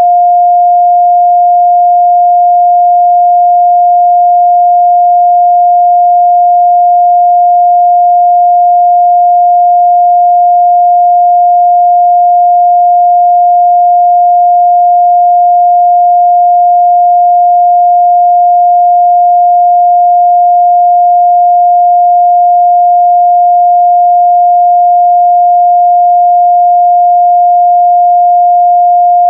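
A steady, loud 706 Hz pure sine-wave test tone, one unchanging pitch, used to test speaker and headphone response in the midrange.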